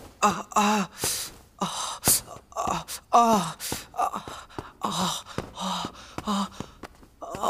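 A man gasping and moaning in pain, again and again: short sharp in-breaths between brief pained groans.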